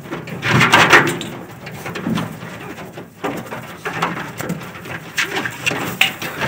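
Sheep bleating: one loud, wavering bleat about half a second in, then fainter calls from the flock.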